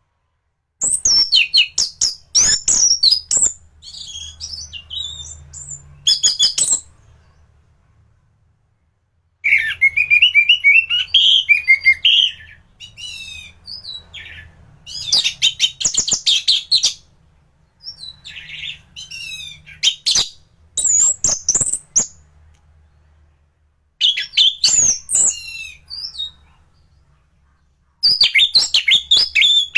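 Orange-headed thrush (anis merah) singing in full voice. It gives loud, varied phrases of fast trills, rising and falling whistles and rapid chattering notes, each a few seconds long with short pauses between.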